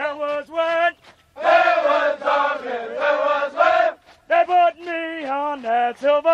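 Military marching cadence sung call-and-response by men. A single caller's line ends about a second in, a group answers from about a second and a half in, and the caller starts the next line at about four seconds.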